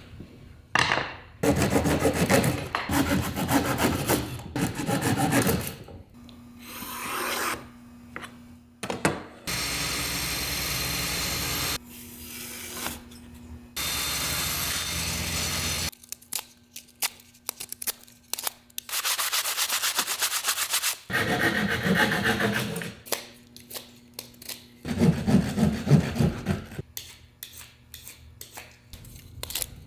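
Dead cedar branches being cut and whittled by hand: bouts of sawing and scraping on the wood that stop and start several times.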